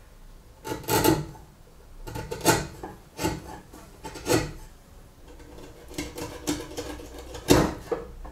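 Steel bench chisel, pushed by hand, paring wood out of a slot drilled in a round wooden rod: a series of short, irregularly spaced scraping cuts, with a run of smaller ones late on and the loudest cut near the end.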